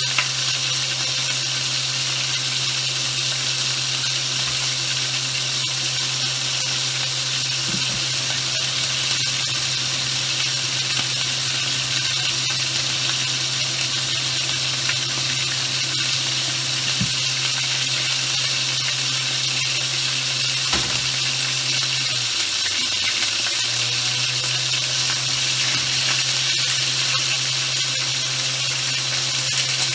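Food frying in a pan on a stovetop, a steady sizzle, with a steady low hum underneath and a few faint knocks.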